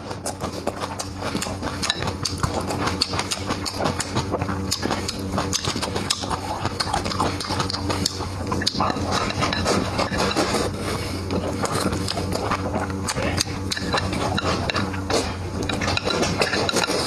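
Close-miked eating sounds: steady chewing with many quick, irregular wet smacking clicks.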